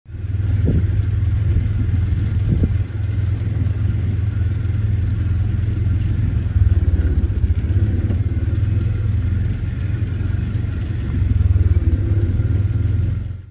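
Off-road utility vehicle engine running steadily, a low drone that swells a little in loudness about halfway through and again near the end.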